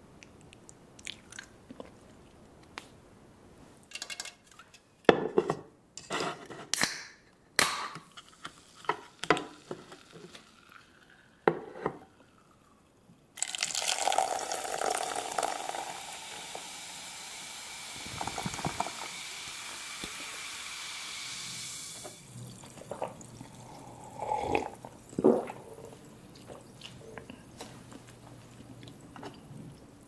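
Scattered light taps and clinks, then a drink poured into a hammered copper mug: a steady hiss of liquid that starts suddenly, is loudest in its first few seconds, runs for about nine seconds and cuts off sharply.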